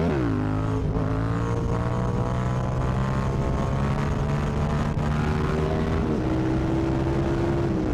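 Yamaha MT-07's parallel-twin engine running through an exhaust with its baffle removed while riding. The revs climb and then drop sharply right at the start, then hold fairly steady, with a step in pitch about six seconds in.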